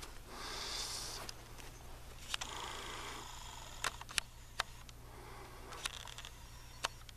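Handling noise from a handheld camcorder picked up by its own microphone: two short rustles in the first three seconds, then several sharp clicks, over a low steady hum.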